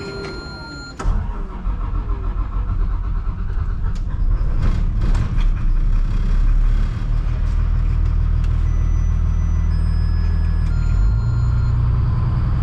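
A converted school bus's rear-mounted engine on a cold start: it fires about a second in and runs unevenly at first. It then settles into a steady low idle, and its note shifts near the end.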